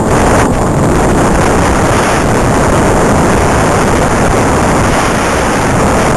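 Loud, steady rush of wind on the microphone mixed with motor and tyre noise, picked up by an onboard camera on a radio-controlled car racing at speed.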